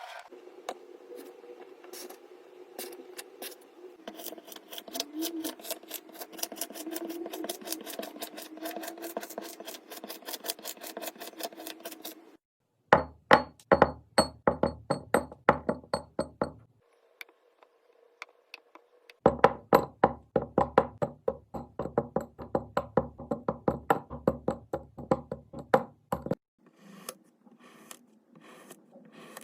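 Kinetic sand being sliced with a knife: a long run of light, rapid cuts, then two bursts of heavier chopping strokes, a few a second, each ending in a dull knock of the blade on the board, with short pauses between clips.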